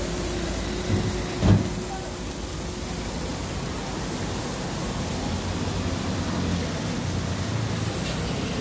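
Steady hiss of a hot flat-top griddle as slices of cheese are laid on it to sizzle, with two dull thumps about one and one and a half seconds in.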